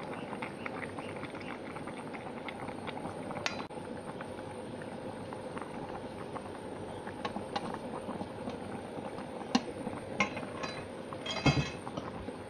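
Coconut-milk papaya curry boiling hard in a pan, a steady bubbling with fine crackling. A few sharp clicks of utensils against the pan break through in the second half, and the loudest cluster comes near the end.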